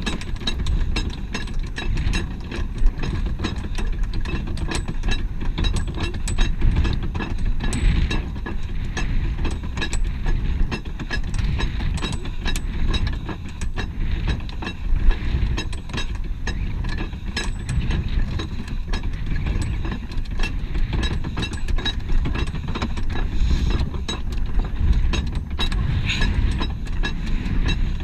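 Hand-cranked deck winch on a sailing barge being wound, its pawl clicking repeatedly over a low steady rumble.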